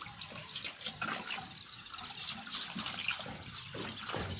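Faint, irregular splashing and trickling of water in a shallow concrete tank as live fish are dropped in and swim about.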